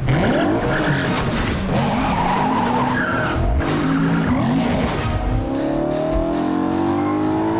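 BMW car's tyres squealing through skids, rising and falling in pitch, with its engine revving hard. About five seconds in, the engine note climbs steadily as it accelerates.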